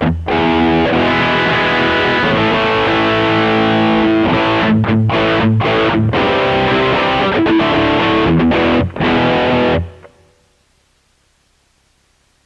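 Electric guitar played through a pocket headphone amp and heard straight from its headphone output: a run of ringing chords and single notes that stops about ten seconds in, leaving only a faint hiss.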